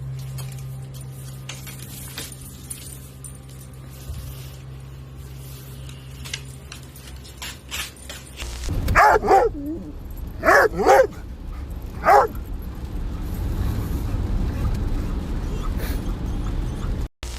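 A dog barking: about five short, loud barks in quick pairs from about nine to twelve seconds in. A low steady hum comes before them.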